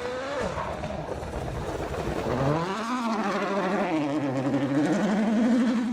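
Rally car engine at full attack, revving up and down with gear changes: the pitch drops, climbs to a peak about three seconds in, falls and holds low, then climbs again near the end.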